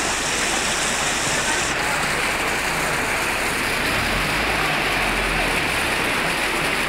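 Floodwater rushing and churning along a street, a steady dense rush of moving water.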